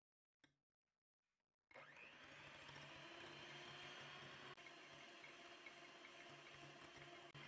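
Electric hand mixer switching on nearly two seconds in and running steadily, its beaters whipping foaming egg whites for meringue.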